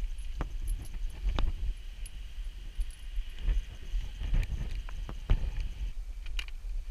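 Fixed iron chains clinking and rattling against the rock as a climber hauls up on them: a run of sharp metallic clicks and knocks, irregularly spaced, over a constant low rumble.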